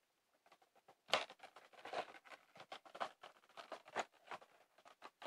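A cardboard Funko Pop box being handled and opened: a run of irregular taps, scrapes and rustles starting about a second in.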